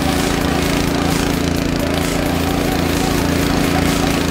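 Walk-behind tractor's small petrol engine running steadily at an even speed.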